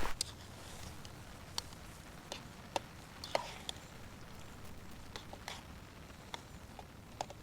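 Scattered light clicks and taps, about a dozen spread unevenly, over a faint quiet background.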